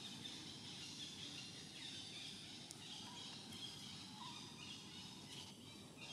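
Faint outdoor ambience: a steady hiss under a busy background of distant bird chirps, with a couple of short, higher calls about three and four seconds in.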